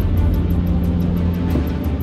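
Background music with a steady, quick ticking beat (about six ticks a second) over a low, steady drone.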